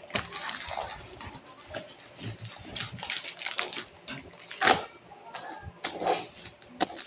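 Cardboard smartwatch box being handled: scattered rustles, rubs and light taps of fingers on the packaging, with one sharper knock a little under five seconds in.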